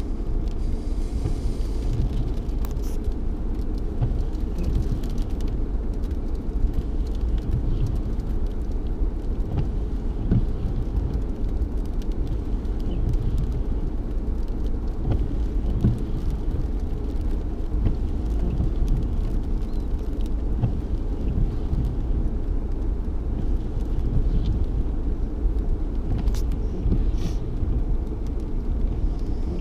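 Steady low rumble inside a stopped car's cabin in the rain, with a few brief sharp ticks near the end.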